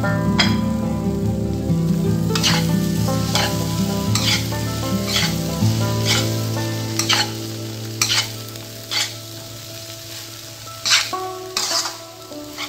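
Spatula stirring and scraping fried rice through a hot nonstick pan, with a light sizzle. The strokes come about once a second, growing sparser and quieter toward the end.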